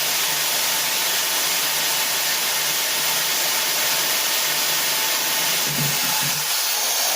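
Makita electric drill running steadily at full speed, its bit cutting a pilot hole through a steel plate under steady push: an even whirring hiss with a faint steady whine.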